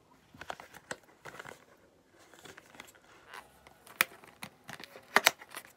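Cellophane wrap being torn off a cosmetics carton and the carton opened: crinkling and tearing with a few sharp clicks, the loudest about four and five seconds in.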